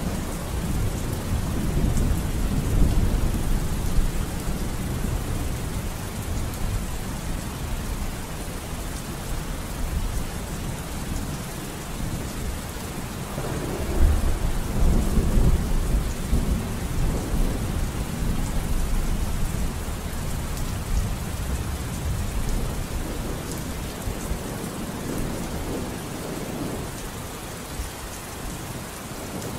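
Steady rain with low rolling thunder that swells and fades, rising most strongly about halfway through.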